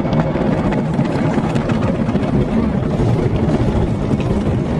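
Automatic car wash's spinning cloth brushes scrubbing and slapping against the car's windows and body, with water spray, heard from inside the cabin as a loud, steady, dense noise.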